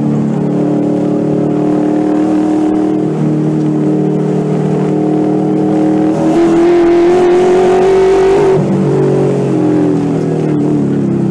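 Ford 5.0L Coyote DOHC V8 in a Mustang race car running hard under throttle at mid-to-high revs. About six seconds in, its note steps up in pitch and gets louder, then drops back after about two and a half seconds.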